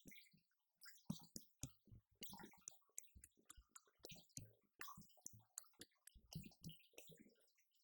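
Drumsticks striking the pads of an electronic drum kit: quiet, irregular clicks and taps, some with a low thump underneath.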